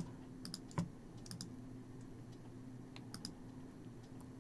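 Faint, irregular clicking of a computer mouse and keyboard during editing, over a low steady hum.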